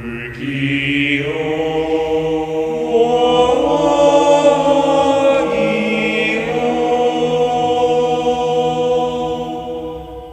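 Intro music of sustained choir-like chanting on long held notes, tapering off near the end.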